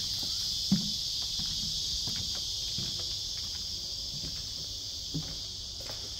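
A steady high-pitched insect chorus, with a few footsteps knocking on timber boards, the sharpest about a second in.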